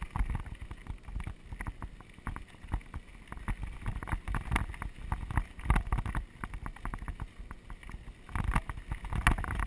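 Mountain bike riding fast over rough dirt singletrack, heard from a bike- or helmet-mounted camera. Wind buffets the microphone, and tyres crunch with rapid rattling clicks and knocks over the bumps, louder in stretches near the middle and end.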